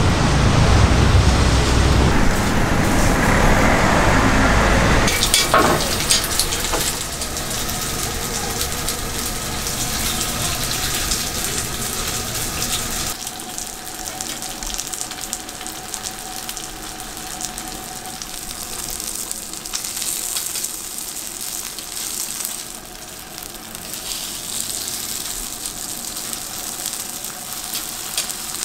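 Low rumble of street traffic for about the first five seconds, then Korean pan-fried dumplings (gun-mandu) sizzling steadily in oil on a flat-top griddle.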